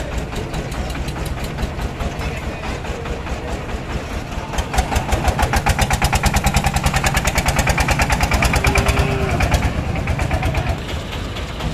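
Engine of a cattle-carrying truck running with an even, rapid chug. It grows louder about four seconds in and eases back near the end.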